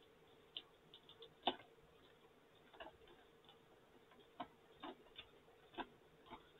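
Faint, irregular clicks and taps of hands handling and prying at stiff clear plastic packaging, the loudest about a second and a half in.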